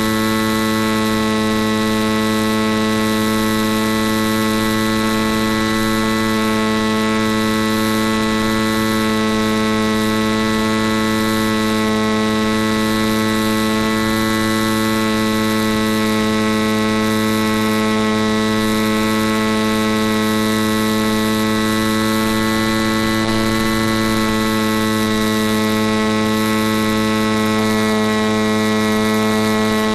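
A steady buzzing hum with many evenly spaced overtones, unchanging in pitch and level throughout.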